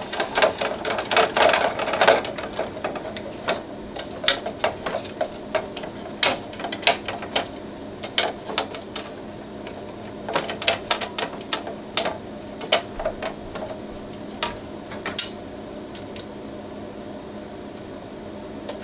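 Irregular sharp metallic clicks and ticks of a screwdriver turning a screw through the Prusa i3 MK3's heatbed into a nylock nut, with metal tapping on the bed plate. The nut is not threading on cleanly. There is a dense flurry of clicks in the first two seconds, then scattered clicks, over a faint steady hum.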